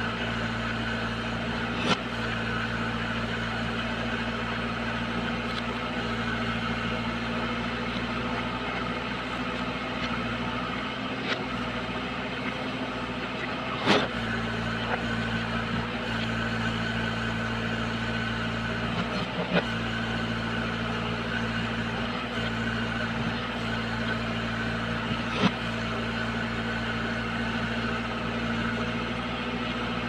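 JCB 3DX backhoe loader's diesel engine running steadily as the backhoe arm digs, with about five short sharp knocks scattered through.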